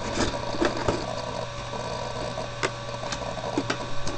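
Hands handling an opened Pokémon card tin and the booster packs inside it: scattered light clicks and rustles, over a steady hum.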